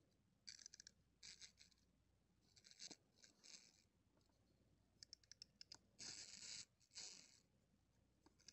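Faint clicks and scratchy rustles of a plastic Wacky Action Leonardo wind-up figure being handled and wound, in short scattered bursts, with a quick run of clicks about five seconds in.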